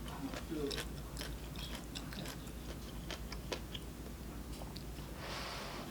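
A person eating Indomie instant noodles close to the microphone: chewing with scattered small clicks and crunches. About five seconds in, a short hissing rush of noise begins.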